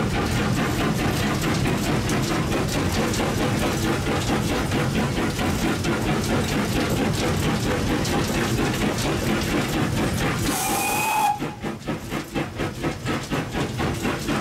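Steam locomotive heard from the footplate while running, a steady dense noise with an even beat. About ten seconds in, a short whistle blast with a hiss of steam sounds, after which the running noise drops and comes in pulses.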